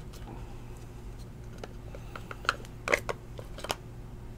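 A stack of thick trading cards and their cardboard box being handled: a scatter of small clicks and taps, the sharpest about two and a half, three and three and a half seconds in.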